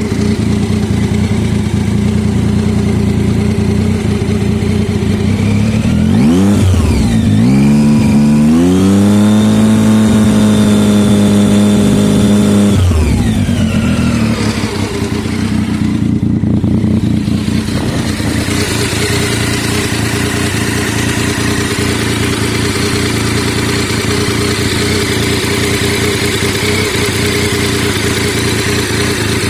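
Triumph Tiger 800's three-cylinder engine idling rough, a sound the owner places on the right side of the engine. About six seconds in the revs rise and hold at a steady higher speed for about five seconds, then drop back to idle.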